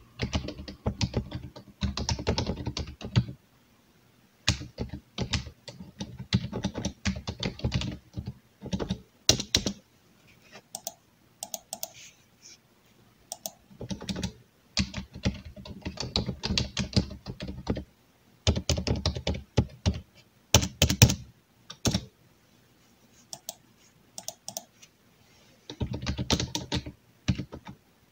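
Computer keyboard being typed on in fast runs of key clicks, broken by pauses of a few seconds with only a few scattered single clicks.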